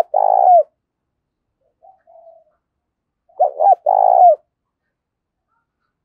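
Spotted dove cooing: a phrase of two short notes and a longer note that falls at the end, heard at the start and again about three and a half seconds in, with a faint soft coo between them.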